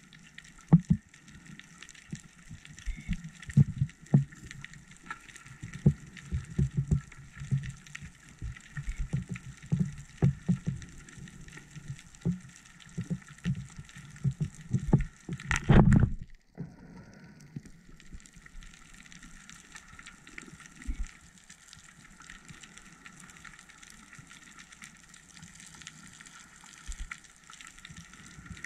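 Underwater sound of a scuba diver's exhaled bubbles, heard through the camera housing: irregular low bubbling and knocks in clusters for about the first half, ending in one louder burst, then a quieter stretch over a faint steady hiss.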